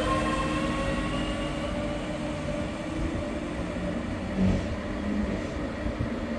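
DB class 146 TRAXX electric locomotive at the rear of a double-deck regional train drawing away: its electric drive whines with a slightly rising pitch that fades out over the first two seconds, leaving the train's rumble slowly dying away, with a brief louder sound about four and a half seconds in.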